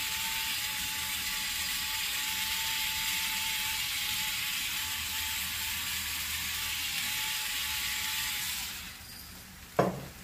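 Battery-powered electric pepper grinder running steadily, a motor whir with a faint whine as it grinds pepper. It stops near the end, and a single sharp knock follows as the grinder is set down.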